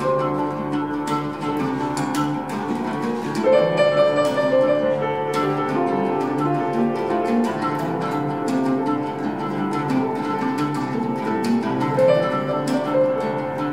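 Oud and piano playing together: the oud plucked in quick runs of notes over held piano tones.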